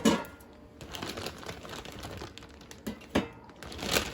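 Plastic packaging crinkling as it is handled, with a few sharp clicks and taps, the loudest one right at the start.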